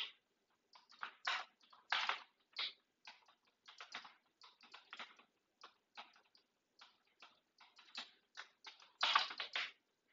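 Typing on a computer keyboard: irregular key clicks with short pauses, then a quicker, louder flurry of keystrokes near the end.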